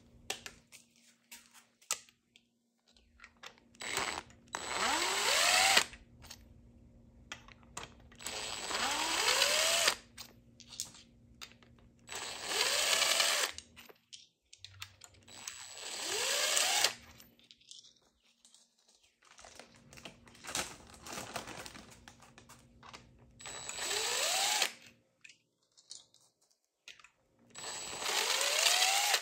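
A cordless power tool runs in six short bursts, each rising in pitch as the motor speeds up, spinning fasteners off a Chevy 350 small-block V8 being stripped down. Short metallic clicks and clinks of parts and hand tools come between the bursts.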